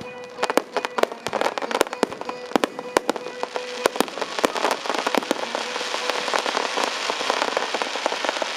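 Fireworks crackling: many quick sharp cracks of crackle shells, several a second, thickening about halfway through into a dense, continuous sizzling crackle. A steady tone sounds underneath during the first half.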